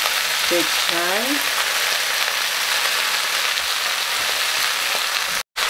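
Snow peas, bell pepper and bok choy frying in hot oil in a pot: a steady sizzling hiss that cuts out for a moment near the end.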